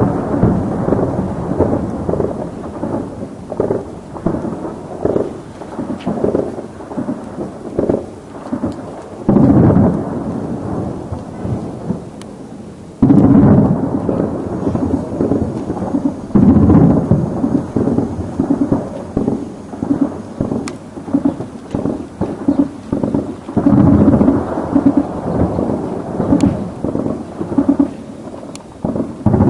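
Distant heavy gunfire and shelling: continuous rapid rattling bursts of automatic fire, with louder sudden booms or volleys about a third of the way in, near the middle, and twice more later.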